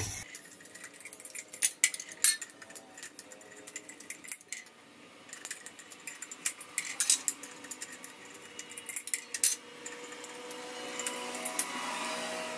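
Scissors cutting through thin aluminium drink cans, with irregular sharp snips and metallic clicks as the cans are cut and handled.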